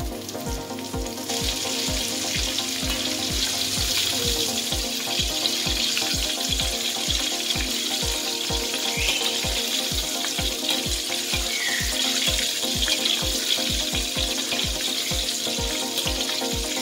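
Battered shrimp deep-frying in hot oil in a wok: a dense sizzle that grows louder about a second in and then holds steady. Background music with a steady beat plays underneath.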